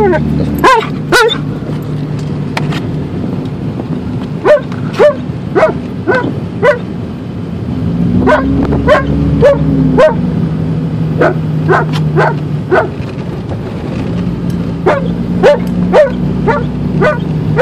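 Alaskan Malamute barking and yipping over and over in quick runs of short, sharp calls, with the car's engine humming steadily underneath.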